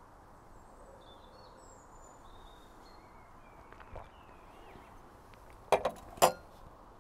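Small birds chirping faintly in the background, then near the end a few sharp glass clinks, with one louder clink just after, as two stemmed beer glasses knock together and onto a glass-topped table.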